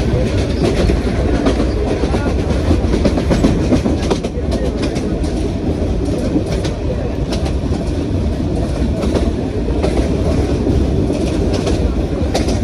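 Local passenger train running along the track, heard from inside the carriage at an open window: a steady rumble of wheels on the rails with irregular clicks and clacks over the rail joints.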